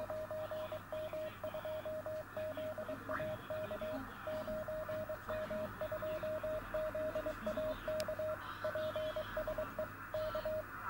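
Morse code (CW) signal on the 10-metre amateur band, received on a shortwave radio: a steady beep of about 600 Hz keyed on and off in dots and dashes over band hiss.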